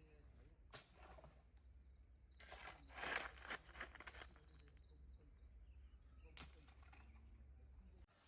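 Faint rustling and crackling handling noises, loudest in a cluster a couple of seconds in, over a steady low hum that cuts off near the end.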